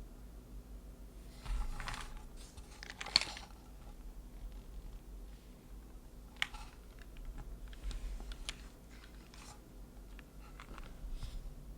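Typing on a Mode Envoy mechanical keyboard with lubed Cherry MX2A Black linear switches on an aluminum plate and GMK Kaiju keycaps: clacky keystrokes. A quick run of presses comes about two seconds in, then slower scattered single presses.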